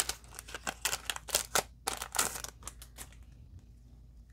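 Foil wrapper of a Pokémon card booster pack crinkling and crackling as it is torn open and the cards are slid out, dying away to a few faint ticks after about three seconds.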